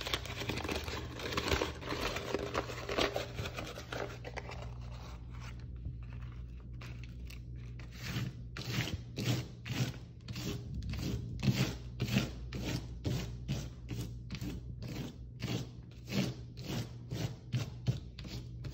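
Crumpled glossy paper crinkling as it is laid on a painting and pressed down by hand. It then turns into a steady run of rubbing strokes, about two a second, as the paper is smoothed flat.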